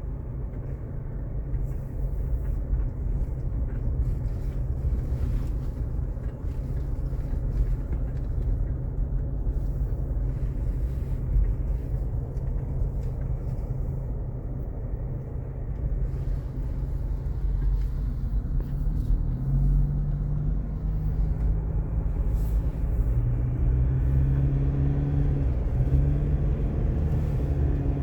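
A motor vehicle running: a steady low rumble throughout, with an engine hum coming up over it in the last third.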